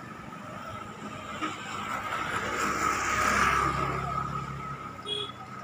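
A motor vehicle passes by on the road, its engine and tyre noise swelling to a peak about three and a half seconds in and then fading, over a steady high tone.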